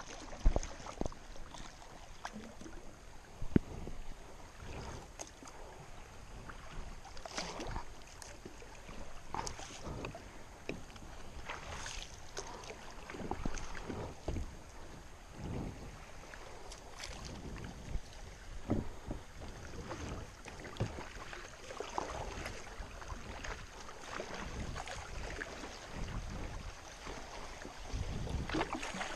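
Kayak paddling on a river: a double-bladed paddle dipping and splashing irregularly, with moving water around the boat.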